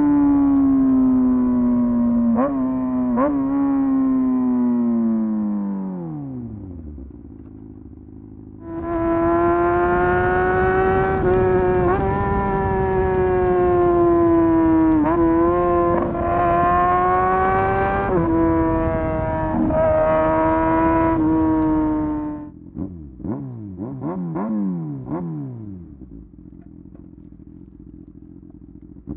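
Motorcycle engine revving. It is held high and sags back to idle about six seconds in, is revved up again and held for roughly thirteen seconds, then gives a few quick throttle blips before settling back to a quiet idle.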